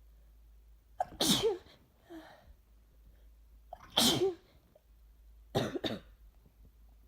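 A person with a cold sneezing twice, about three seconds apart, each sneeze with a short catch of breath just before it, then two quick coughs near the end.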